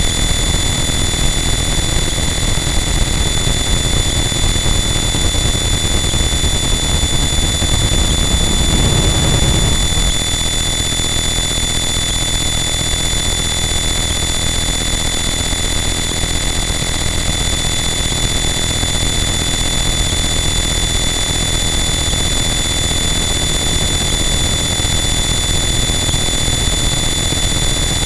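Harsh noise wall: a loud, unchanging wall of dense static noise with steady high whistling tones running through it. A low rumbling swell rises briefly about eight seconds in and falls away about two seconds later, leaving the wall slightly quieter.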